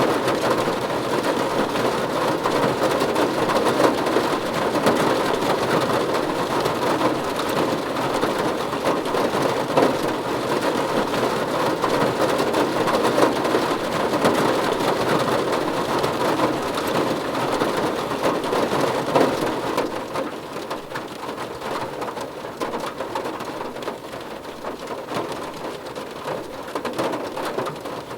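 Steady heavy rain drumming on a car's roof and glass, heard from inside the cabin: a dense patter of drops that eases slightly about twenty seconds in.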